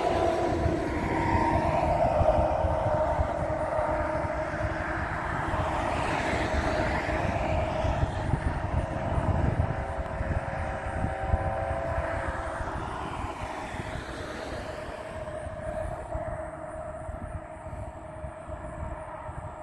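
A steady engine drone with a low rumble, several held pitches in it, slowly fading over the second half.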